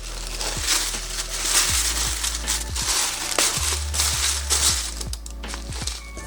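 Packaging crinkling and rustling as items are unwrapped by hand, dying down about five seconds in.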